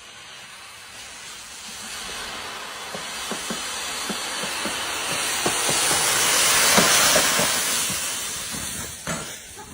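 A hissing noise that swells to its loudest about seven seconds in and then fades, with faint low ticks through it.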